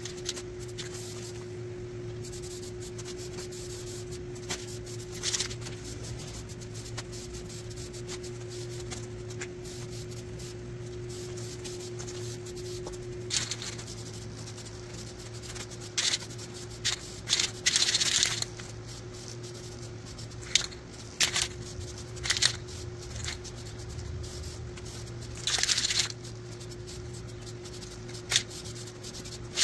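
Aerosol can of red spray paint hissing in short bursts as a coat is laid on a bare mower part. The bursts are few at first, then come often in the second half, a couple of them held for most of a second, over a steady low hum.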